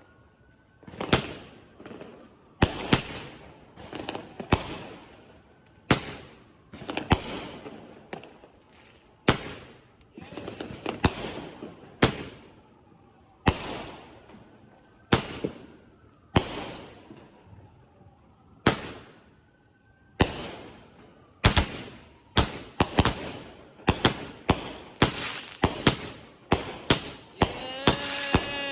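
Consumer aerial fireworks going off: a string of loud bangs one to two seconds apart, many trailing into crackle, a few with a faint rising whistle. The bangs come much faster in the last several seconds.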